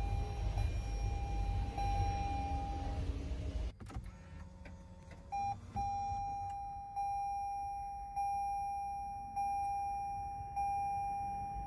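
2021-and-later Toyota Sienna hybrid's dashboard warning chime: a single-pitch ding repeating about every 1.2 seconds, each note fading before the next. About four seconds in it cuts to a second Sienna, quieter, opening with a short beep before the dings resume.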